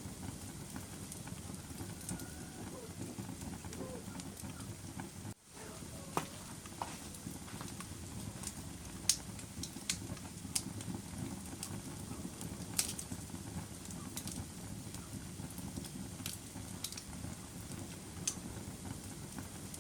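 Wood fire burning in a fireplace: a steady low rumble of flames with scattered sharp crackles and pops. The sound drops out briefly about five seconds in.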